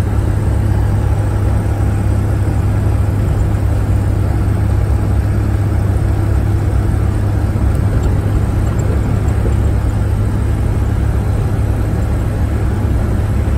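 An old car's engine and road noise heard from inside the cabin while driving at speed: a steady, even low drone with no misfires or changes. The engine is running smoothly in the thin mountain air.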